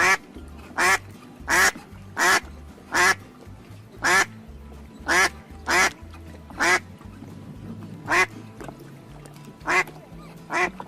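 Duck quacking repeatedly, about a dozen short quacks at an uneven pace, over background music.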